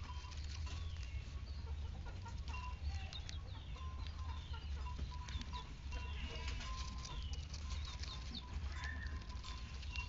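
Lovebird tearing and nibbling at leaves with its beak: an irregular patter of small clicks and crackles, with short bird chirps scattered through it.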